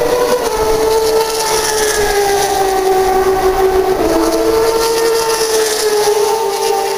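Turismo Carretera race car engines at high revs going by along the straight, their sustained note sliding slowly down in pitch. A second car's note comes in about four seconds in and falls the same way.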